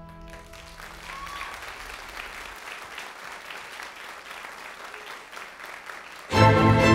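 Audience applauding as sustained music fades out in the first second. About six seconds in, loud string music starts abruptly.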